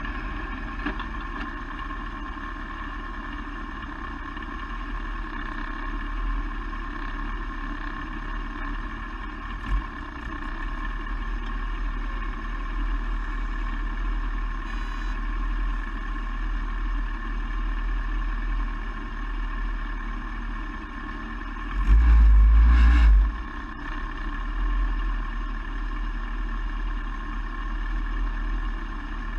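Open-cockpit race car's engine running steadily with a heavy low rumble. About two-thirds of the way through there is a louder low burst lasting a little over a second.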